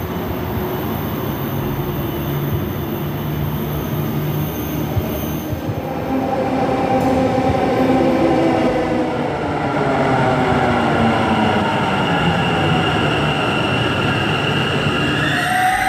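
Bangalore Namma Metro train pulling into the station: its electric drive whines in several tones that fall in pitch as it slows, over the rumble and squeal of steel wheels on the rails.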